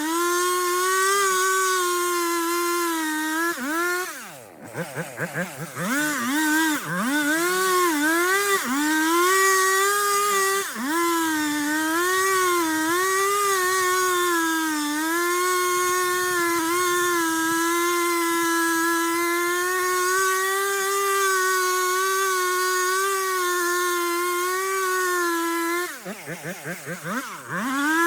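Two-stroke chainsaw running at high revs while cutting through a large tree trunk, its pitch wavering as the chain loads up. Twice the throttle is let off and the engine drops toward idle, then it revs back up: about four seconds in and again near the end.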